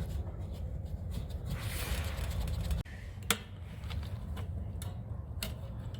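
A few light clicks and some rubbing from small water-heater parts being handled, over a steady low rumble.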